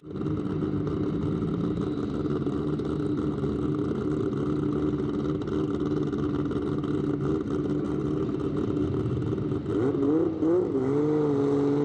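Drag-race car engine running steadily at the start line, then revved in short blips about ten seconds in and held at higher revs near the end.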